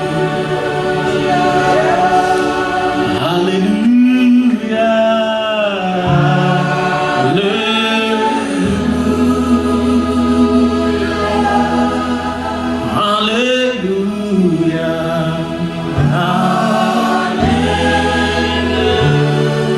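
Gospel worship music: voices singing together over sustained keyboard and bass chords.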